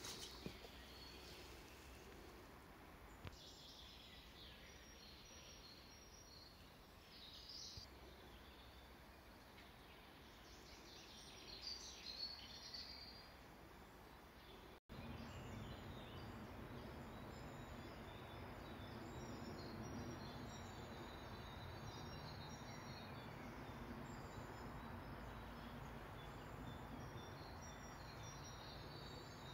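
Birds chirping faintly over quiet outdoor background noise. About halfway in the sound drops out for an instant, and after that the steady background noise is louder, with more chirps over it.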